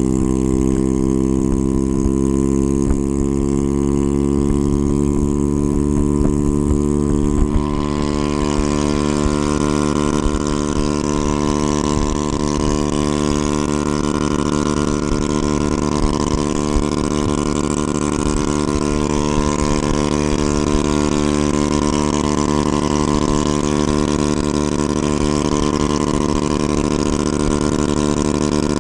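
Honda Ruckus scooter's 49cc single-cylinder four-stroke engine running as it rides along, pitch climbing gently over the first several seconds as it picks up speed, then holding steady. A hiss of wind rush comes in about seven seconds in and stays.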